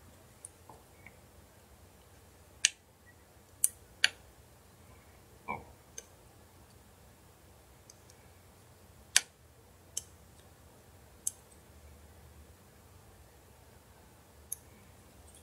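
Scattered sharp clicks and taps of a small precision screwdriver against plastic and metal phone parts during a phone teardown, about ten in all over a faint low hum. The loudest come a few seconds in and again near the middle.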